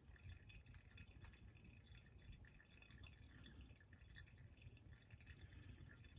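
Faint trickle of brake fluid and air being forced by a pressure bleeder out of an opened brake bleeder screw, through a clear hose into a catch bottle, heard as soft irregular ticks over a low hum.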